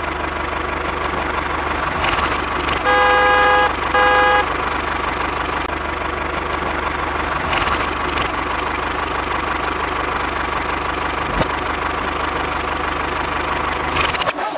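A tractor-type engine running steadily, with two short horn toots about three and four seconds in.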